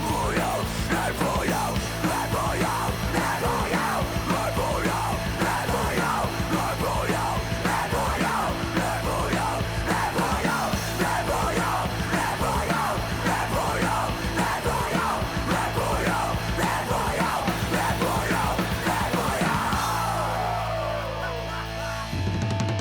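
Loud background rock music with a fast, driving beat. Near the end the sound slides down in pitch and gives way to a new, sparser section.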